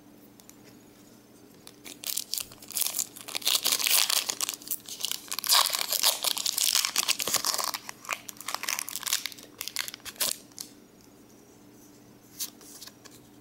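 Foil wrapper of a Pokémon card booster pack crinkling and tearing as it is ripped open, loudest in the middle, then dying away to light handling of the cards near the end.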